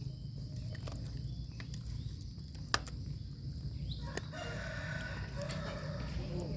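A rooster crowing once: one long, held call that starts a little past the middle and dips in pitch at its end. A single sharp click comes shortly before it, over a steady low rumble.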